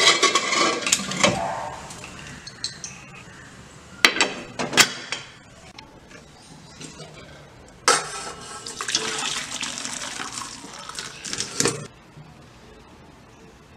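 Steel pressure cooker's lid clattering as it is closed, then a few metal knocks. About eight seconds in, boiled jackfruit pieces and their cooking water are poured into a perforated steel plate, with water splashing and draining for about four seconds before stopping.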